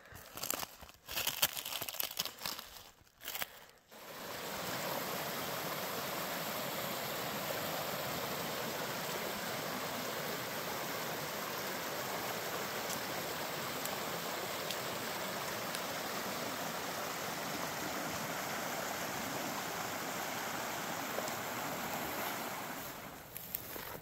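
A shallow creek running over rocks, a steady rush of water that starts about four seconds in and fades near the end. Before it, a plastic water reservoir bag with ice in it crackles and knocks as it is handled.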